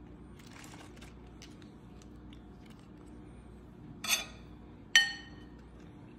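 Faint rustling of romaine lettuce leaves being handled, then a brief crisp crackle about four seconds in, and about a second later a sharp ringing clink as a metal spoon strikes a glass bowl.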